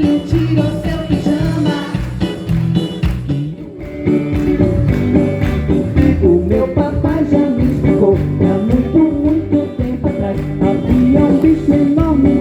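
Live band playing music with guitar. The music drops briefly about three and a half seconds in, then the full band comes back in.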